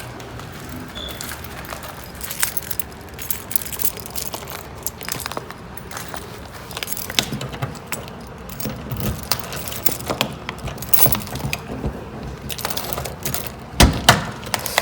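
A bunch of keys jangling and clinking irregularly, mixed with small handling knocks, with a louder knock near the end.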